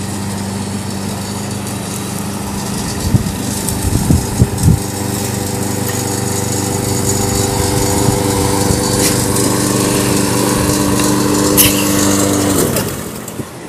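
Petrol walk-behind lawn mower engine running steadily, growing louder as it comes closer, with a few sharp knocks and rattles about three to five seconds in. Near the end the engine cuts out and winds down.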